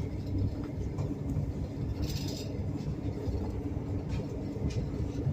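Passenger train running, heard from inside a compartment car: a steady low rumble of the wheels on the rails, with a brief hiss about two seconds in.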